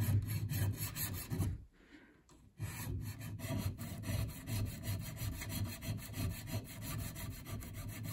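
Triangular hand file rasping back and forth across the base of a metal pistol rear sight held in a vise, in quick short strokes with a brief pause about two seconds in. Material is being filed off the bottom of the sight so it clears the rib on the slide.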